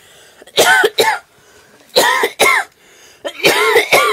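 A woman coughing hard: three bouts of two harsh, voiced coughs each, coming about every second and a half.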